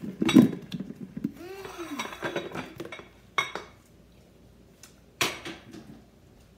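Dishes clattering on a hard tabletop as a plastic bowl and plate are picked up, loudest in the first half second, followed by a few lighter single knocks.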